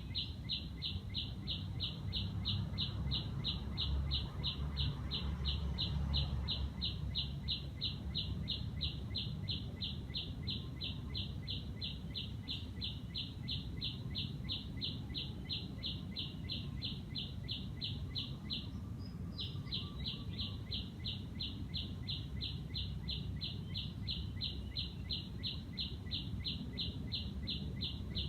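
A bird repeating a single high note about three times a second in a long, even series, with one short pause about two-thirds of the way through, over a low background rumble.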